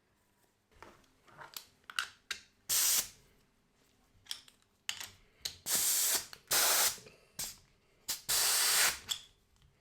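Pneumatic brake caliper piston wind-back tool giving several short hissing bursts of compressed air, each under a second, after a few light metal clicks of the adapter being fitted against the piston.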